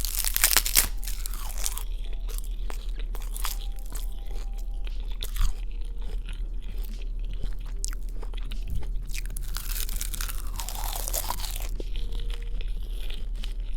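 Crunchy food being bitten and chewed right at the microphone: a dense run of sharp, wet crunches.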